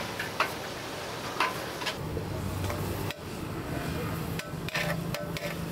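Metal utensils clinking against dishes in a few sharp knocks, over steady background noise. A low hum comes in about two seconds in.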